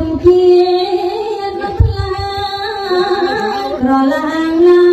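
A woman singing Khmer smot, Buddhist chanted verse, into a microphone. Her voice holds long, wavering, ornamented notes, with a low thump about two seconds in.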